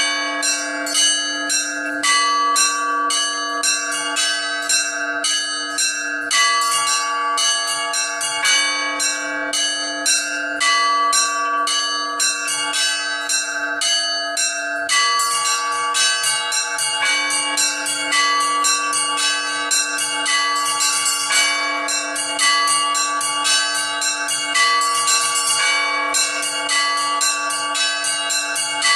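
Orthodox church bells rung by an automatic electronic ringing system in a slow weekday peal: small bells struck in quick repeating patterns over the long hum of a larger bell, with a middle bell returning about every two seconds. About halfway through, the small bells grow busier.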